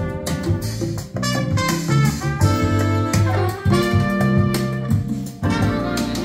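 Jazz recording with brass lead and drum kit played back over a hi-fi loudspeaker system, held horn notes over a steady bass line.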